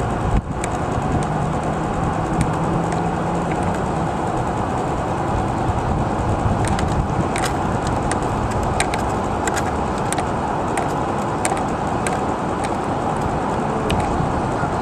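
Radio-controlled model boats running on the water: a steady noisy hum with scattered sharp ticks, and a brief pop just after the start.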